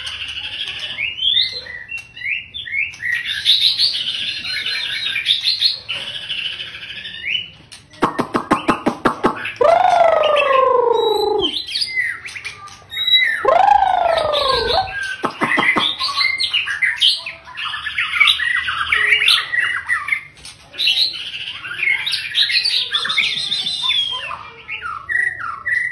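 Male white-rumped shama singing: a long run of quick, varied whistled phrases. About eight seconds in comes a rapid burst of clicks, then two long, lower notes that fall in pitch.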